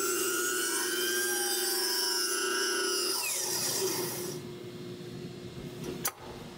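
Large circular saw ripping a 22½-degree bevel along a Sitka spruce mast stave, the motor running with a steady whine. About three seconds in it is released and the blade spins down, falling in pitch, and a sharp click follows near the end.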